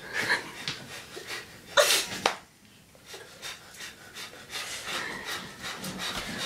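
A girl panting fast and hard while crouched, deliberately hyperventilating to make herself faint. There is one loud sharp burst about two seconds in, then a short pause before the rapid breathing starts again.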